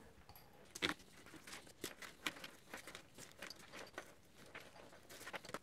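Faint, scattered light clicks and rustles of gloved hands handling and gathering electrical cables against a bicycle frame.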